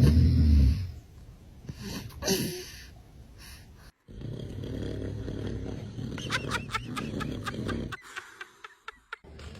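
A man snoring loudly, with a baby laughing in short, quick bursts partway through.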